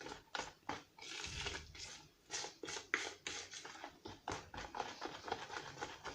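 A utensil stirring a thick semolina cake batter by hand in a bowl, with repeated irregular taps and scrapes against the bowl, a few strokes a second.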